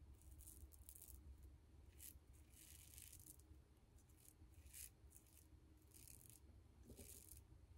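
Faint, short scratchy strokes of an Aylsworth Drakkant double-edge safety razor with a Tatara blade scraping five days of stubble through lather on the neck, repeated a dozen or so times at an uneven pace.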